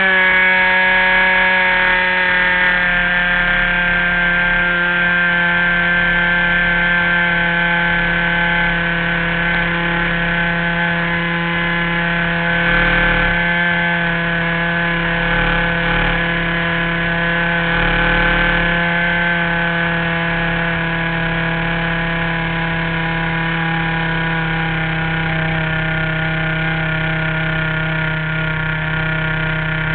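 RC model airplane's engine running steadily in flight, heard from a camera mounted on the plane, its pitch holding nearly level with a slight drift lower.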